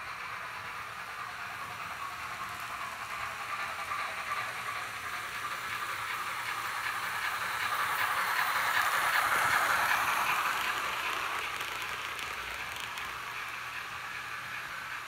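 Roco model BR 01 steam locomotive and its passenger coaches running on model track: a steady rolling hiss of motor and wheels that grows louder, is loudest about nine seconds in as the train passes close by, then fades as it moves away.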